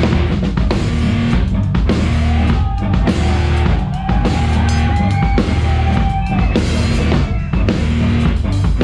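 Drum kit played fast and hard with a live heavy rock band, heard close up from the kit, with distorted guitars and bass underneath. A long held high note rings over the middle of it.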